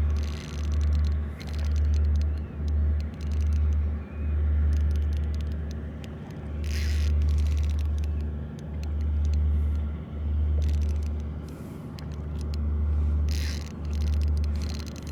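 Wind buffeting the microphone in uneven gusts, a deep rumble that swells and drops every second or two, with a few brief hisses.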